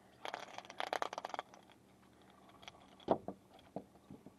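A small speckled trout just lifted out of the water, flapping on the line: a quick rattling flurry of clicks for about a second. A few separate knocks follow, the loudest about three seconds in.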